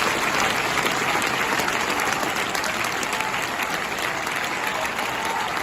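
Stadium crowd of football supporters applauding, a steady clatter of many hands clapping.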